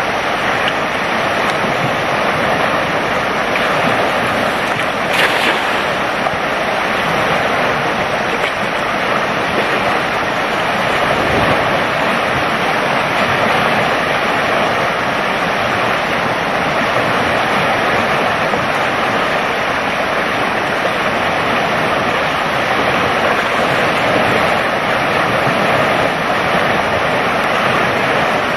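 Steady rush of a fast-flowing, flood-swollen river, with one brief sharper sound about five seconds in.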